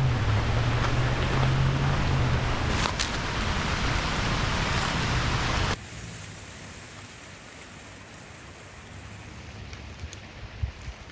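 Steady rushing water noise, a dense hiss over a low rumble. It cuts off abruptly about six seconds in, leaving a much quieter background with a few faint knocks near the end.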